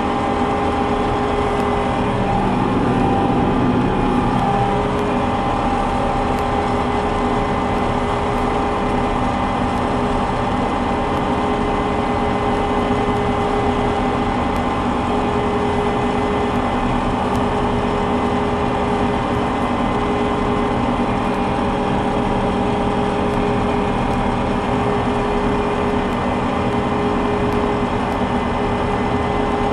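Combine harvester running steadily, a constant engine rumble with a few held whining tones over it.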